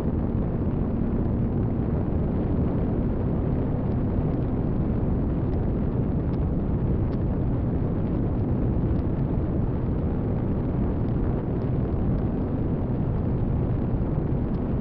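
Steady rumbling wind rush on the microphone of an RC glider's onboard camera in flight, with a faint steady hum in the first few seconds.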